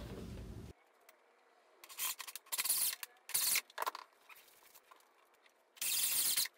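Several short scrapes and rubs from handling the gate's mounting hardware, then a brief steady burst near the end as a cordless drill drives a screw snug into the door frame. The background hum cuts out abruptly just under a second in.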